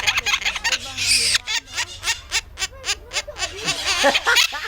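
Animal calls: a dense run of short, pitched squawking calls with bending pitch, coming fastest, about five a second, in the middle.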